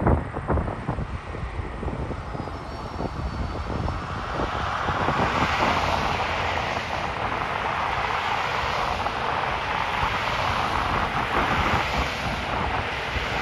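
Tyre and engine noise from a line of police cruisers and cars passing close by on the highway. It swells from about four seconds in as the lead vehicles reach the camera, with wind buffeting the microphone.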